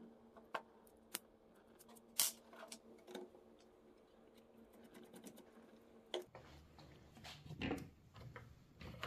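Faint clicks and taps of small plastic parts as a wheel is pushed onto an RC car's hub and a plastic wheel nut is pressed on, with soft rubbing and scraping near the end.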